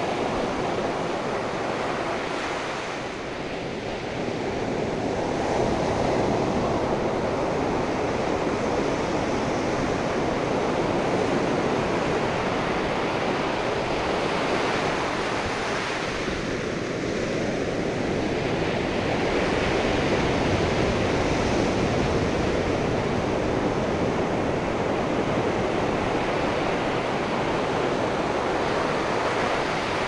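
Ocean surf breaking and washing up a shingle beach: a steady rush of waves that swells and eases gently as the sets come in.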